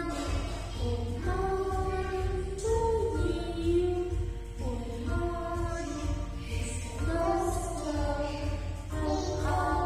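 A song sung over backing music, the voice holding each note before stepping to the next, with a steady low hum beneath.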